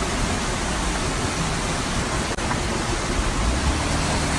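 Floodwater rushing down a street in a steady, loud, even rush.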